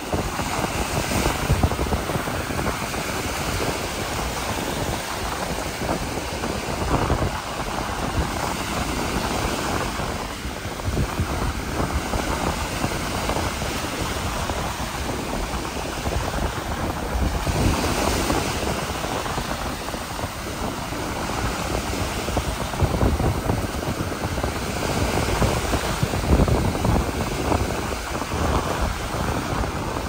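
Wind buffeting the microphone over the steady wash of ocean surf, the rush swelling and easing every several seconds.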